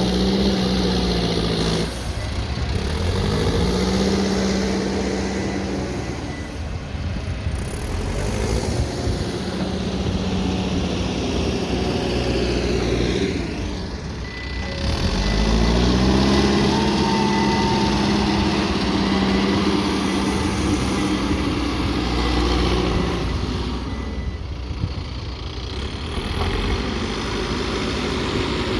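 Backhoe loader's diesel engine working under load, its pitch falling away and climbing back several times as it revs up again, over a steady low rumble.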